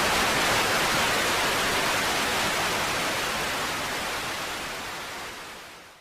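A steady, loud, static-like hiss with no pitch or rhythm. It slowly fades over the last couple of seconds and cuts off at the end.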